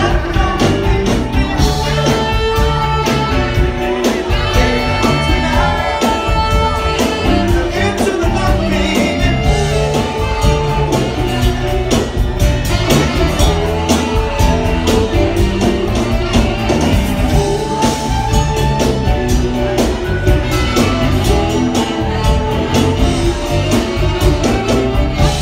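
Live soft-rock band playing with lead singing, drums, bass, keyboard and electric guitar, heard from within the crowd in a large room.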